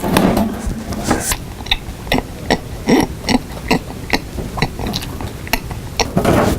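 A person eating toast with exaggerated loud crunching and smacking, irregular bites and mouth noises a few times a second.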